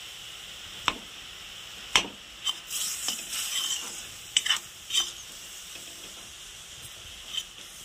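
Jaggery melting in a little water, sizzling in a metal kadhai while a metal spoon stirs it. The spoon scrapes and knocks against the pan about eight times, loudest about two seconds in.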